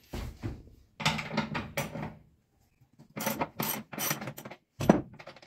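Socket ratchet wrench clicking in two quick runs as it turns a bolt at the seat-belt mounting in the floor, then a single sharp knock near the end.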